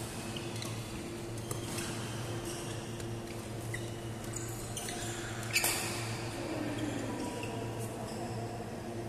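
Badminton rally: racket strikes on the shuttlecock and short squeaks of shoes on the court floor, with the loudest, sharpest hit about five and a half seconds in. A steady low hum runs underneath.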